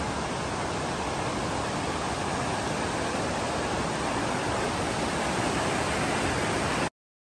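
River rapids: water rushing over rocky shoals in a steady, even rush that cuts off suddenly near the end.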